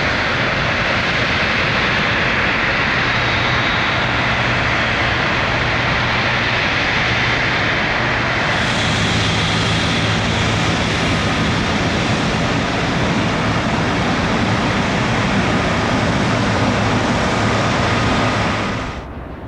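Jet airliner engines running loud and steady, a low hum under a strong hiss. About eight seconds in the sound turns hissier, and it falls away quickly near the end.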